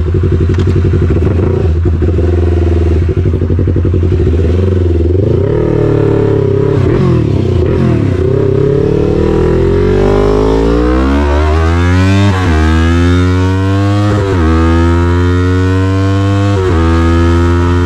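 Loud Yamaha MT-03 parallel-twin engine through an SC-Project full exhaust. It first runs at low revs with the throttle rising and falling, then accelerates hard from about ten seconds in, the revs climbing and dropping back with three quick upshifts.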